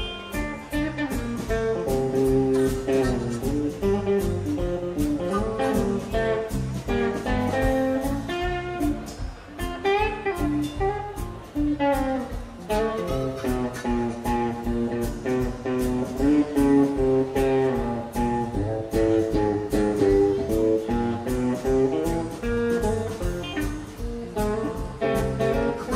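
Live blues band playing an instrumental passage without vocals: an electric guitar carries the lead over bass and drums with a steady beat.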